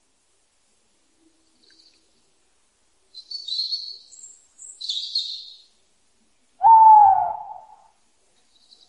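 Owl calling: two short, high, raspy calls, then one louder, lower, clear hoot that dips slightly in pitch at its start and lasts about a second.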